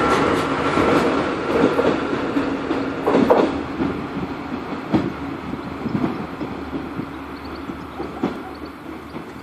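Passenger train running on the rails, with a few sharp wheel clacks over rail joints, fading as it moves away.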